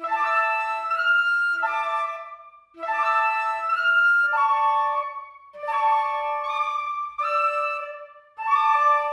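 Instrumental background music: a melody of held notes in phrases of one to two seconds, with short breaks between.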